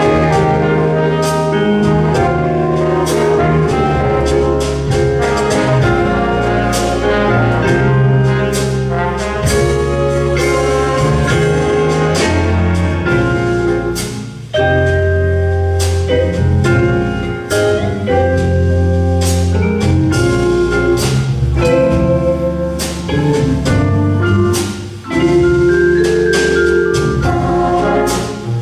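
Big jazz band playing live: saxophones, trombones and trumpets in held ensemble chords over a steady beat of drum and cymbal hits, with piano and mallet percussion, and two brief breaks in the sound, about halfway and near the end.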